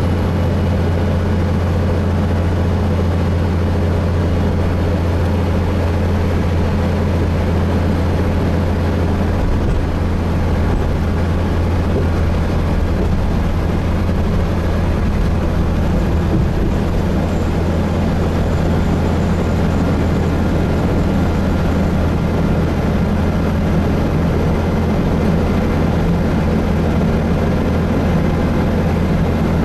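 Gillig Phantom transit bus running steadily, heard from inside the cabin: a constant low engine drone with even road and drivetrain noise over it.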